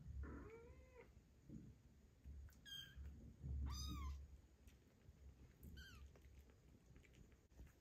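Kittens mewing: four short, high-pitched mews a second or two apart, the first one lower.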